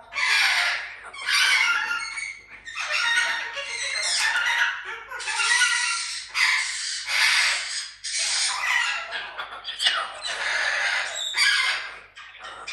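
Pet parrots squawking loudly, a long run of harsh calls, each about a second long, one after another.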